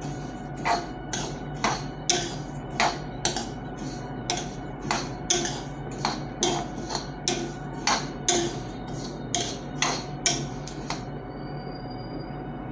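Steel spoon scraping and knocking against a black iron kadai while stirring black sesame seeds as they dry-roast, about two strokes a second with a metallic ring. The stirring stops near the end.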